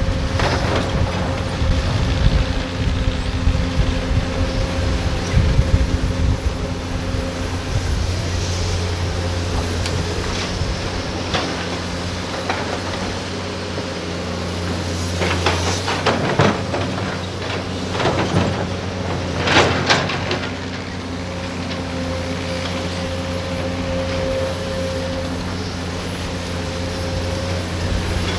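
Diesel engines of hydraulic crawler excavators running steadily. Over the engines come irregular clanks, knocks and rattles as buckets dig and drop loads of earth and rock into a dump truck's steel bed, busiest in the first few seconds and again about halfway through.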